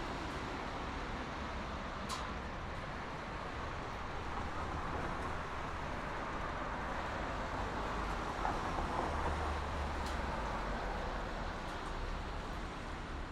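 Distant highway traffic: a steady, even wash of passing vehicles that swells a little past the middle, with a few faint ticks.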